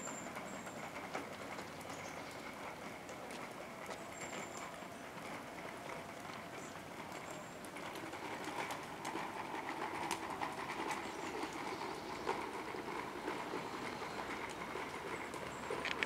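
Distant traffic noise, steady and growing louder about halfway through, with faint clicks and a few faint high chirps near the start.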